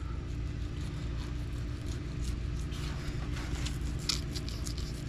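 Fillet knife cutting along a black drum's back through its thick, dime-sized scales, giving short crackling scrapes that come thickest in the middle. A steady low hum runs underneath.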